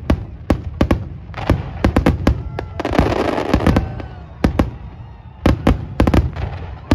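Aerial fireworks display: a rapid, irregular series of sharp bangs as shells burst overhead, with a dense crackling stretch about three seconds in.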